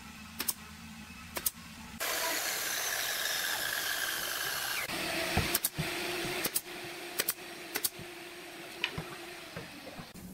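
Pneumatic brad nailer driving brads into hardwood crown molding: about eight sharp shots, some in quick pairs, a few in the first couple of seconds and more between about five and eight seconds in. A steady mechanical hiss and hum runs underneath.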